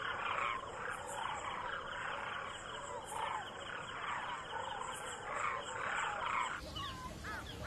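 Dense, continuous chorus of overlapping animal calls with a fine, steady high trill above it. About six and a half seconds in the background changes abruptly, and a few short separate calls that rise and fall in pitch follow.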